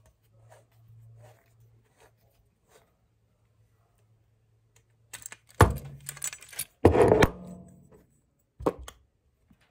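Mini tubing cutter turned around half-inch copper pipe, making faint scraping ticks. Then, once the pipe is cut through, a series of loud metallic clanks with a ringing clatter as the copper pipe is knocked and set down, and one more knock near the end.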